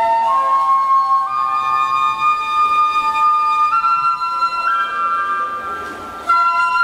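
Japanese bamboo flute playing a slow melody of held notes that climb step by step, with a second, lower line sounding beneath. There is a short break near the end, then the next phrase comes in.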